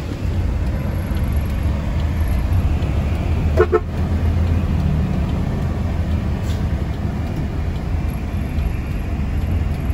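Truck engine running steadily on the move, with a short vehicle horn toot about three and a half seconds in.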